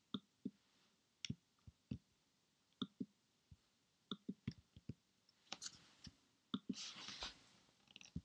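Faint, irregular clicks of a computer mouse and keyboard, a few a second, with a short rustling stretch about seven seconds in.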